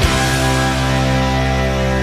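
Rock music: a single chord struck at the start and held steadily, with no singing.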